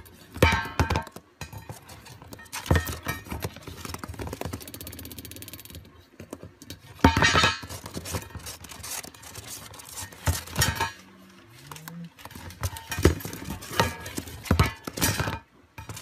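Repeated knocks and clatters of a plastic lid on cardboard as a lovebird pushes and flips it with its beak.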